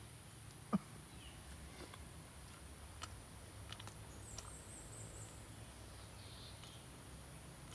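A few scattered sharp clicks and taps over a faint steady outdoor background. The loudest, a single crisp click, comes under a second in.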